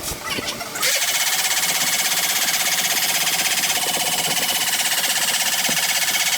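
A loud machine running steadily with a fast, even pulsing. It starts about a second in and stops suddenly near the end.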